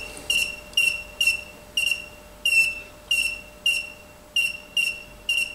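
A train of short high-pitched chirps, about two or three a second at uneven spacing, each dipping slightly in pitch as it starts, over a faint steady hum.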